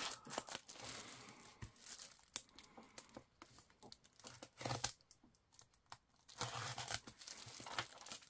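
Thin plastic wrapping crinkling and tearing as a parcel is worked open by hand, in irregular crackles with a short pause about six seconds in.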